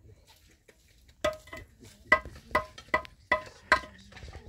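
Metal struck against metal six times in quick succession, a little over a second in, each strike a short ringing clink.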